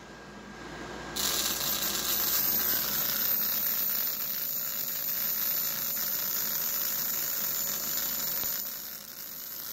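Homemade pulsed flyback driver running: a small high-speed motor spins a toothed gear that brushes against the ballast leads, sparking as it chops the current, while the flyback transformer's output arcs. The sound is a steady, hissing, buzzing whir that starts about a second in and cuts out near the end.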